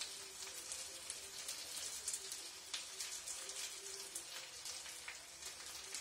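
Oil sizzling lightly in a frying pan under a bread round filled with sautéed peppers and onion: a steady fine hiss with many small crackles.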